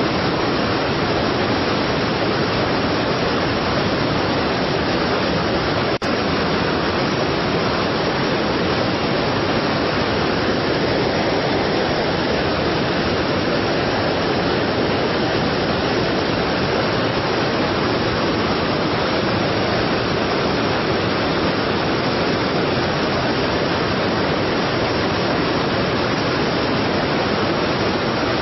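Strong waterfall: water pouring and crashing in a dense, steady rush that never lets up.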